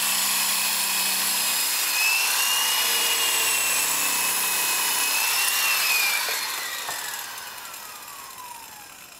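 Electric polisher with a foam pad running at speed, buffing the clear-coated finish of a wood trim panel, its motor giving a steady high whine. About six seconds in, the whine drops steadily in pitch and fades as the polisher winds down.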